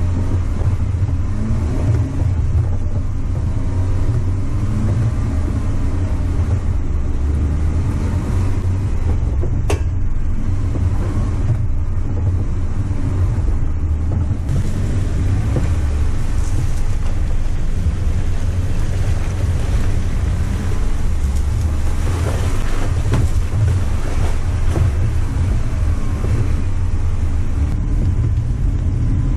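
Off-road vehicle's engine and drivetrain running steadily with a deep low rumble on a trail drive, with a single sharp click about ten seconds in.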